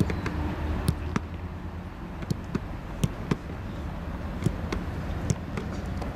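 Footfalls of a group of footballers jogging on artificial turf: scattered sharp steps at an uneven rhythm, over a low steady rumble.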